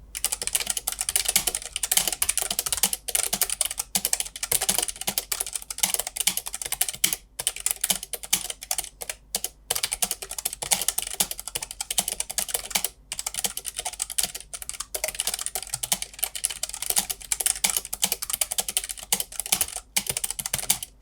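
Fast, continuous typing on a Keychron K3 low-profile mechanical keyboard fitted with optical red linear switches: a dense run of key clicks with a few brief pauses.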